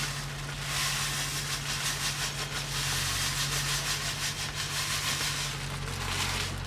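Granulated sugar pouring from a plastic bag onto shredded coconut in a metal pan: a grainy hiss that starts about a second in and stops shortly before the end, over a steady low hum.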